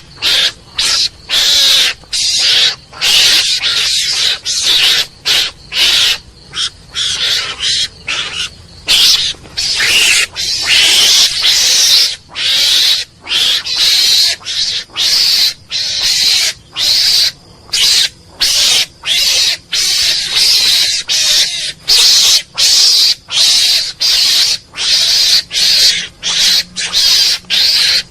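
Mongoose calling: a long unbroken series of short, harsh, high-pitched calls, about two a second, with brief gaps between them.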